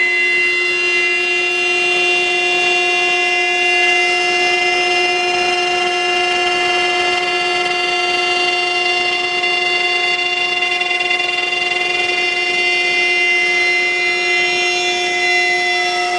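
High-speed spindle of a five-axis CNC router running with a steady, unchanging high whine as it mills curved bent-wood parts.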